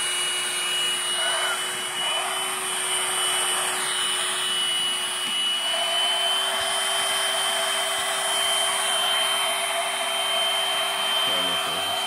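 Hoover Blade cordless stick vacuum running with a steady high motor whine over the rush of air. Its pitch steps up slightly a couple of times.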